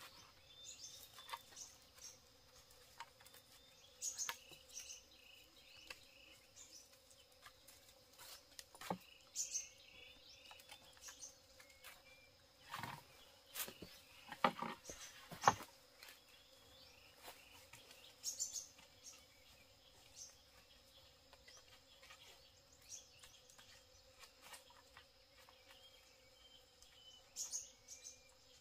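Faint forest ambience: a steady insect drone, with a bird chirping in short runs of four or five quick notes now and then. Scattered clicks and knocks throughout, a few louder ones near the middle.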